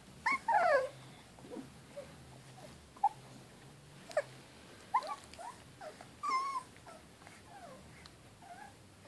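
Young cockapoo puppy whimpering in short squeaky cries that bend up and down in pitch: a quick cluster about half a second in, then single squeaks every second or so and a wavering cry around six seconds in.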